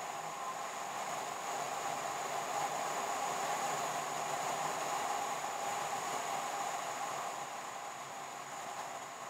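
Steady noise of a car driving: road and engine noise with a thin high whine over it, growing a little louder midway and easing off near the end.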